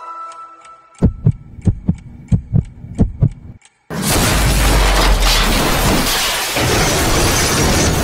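Dramatic film sound effects. A heartbeat thumps about three to four times a second and cuts off into a brief silence. Then a sudden loud crash from a car accident turns into a sustained rumbling noise.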